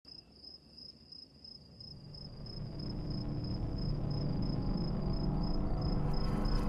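A cricket chirping steadily in short, evenly spaced high pulses, about three a second, while a low rumble fades in under it from about two seconds in and grows louder.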